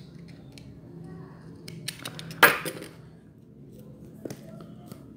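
Phone box packaging being worked open by hand: scattered light clicks and rustles, with one sharp crackle about two and a half seconds in.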